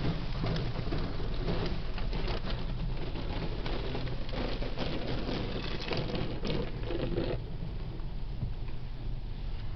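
Water jets from a Futura Revolution touchless car wash spraying and pattering on the car's body and glass, heard from inside the cabin. The spray eases off about seven seconds in, leaving a steady low hum and a lighter patter.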